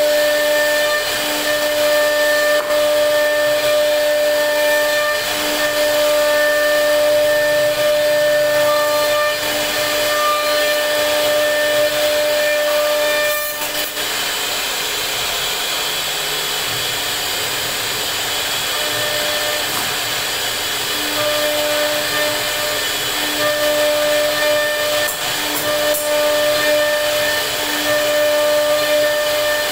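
CNC router spindle carving a wooden panel: a steady, loud whine over a hiss of cutting noise. About halfway through the sound drops a little and the higher tone fades, coming back about two-thirds of the way in.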